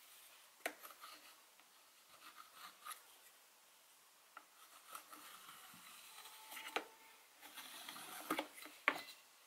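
Faint scratching of a pencil marking a clear plastic box along a metal ruler, with a few sharp light clicks and taps of the ruler and hands on the plastic. The scratching is busiest in the second half.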